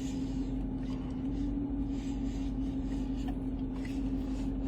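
Steady hum inside a parked or idling car's cabin, with one constant droning tone over a low rumble.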